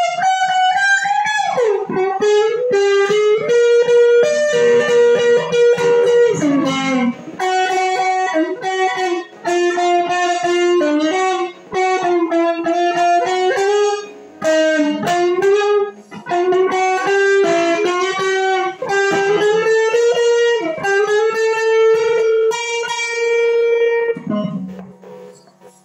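Stratocaster-style electric guitar playing a sustained single-note lead melody, with bent and sliding notes and a smooth, singing tone. The last note fades away near the end as the piece finishes.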